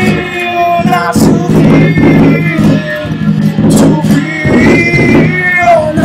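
Live music: electric guitar playing sustained, bending notes over a steady low drone, with drum hits now and then.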